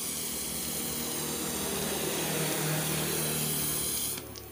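LPG-and-oxygen torch flame hissing steadily, shut off about four seconds in.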